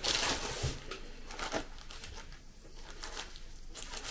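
Thin plastic bag crinkling and rustling as it is pulled open by hand, loudest in the first second, then softer, scattered crackles.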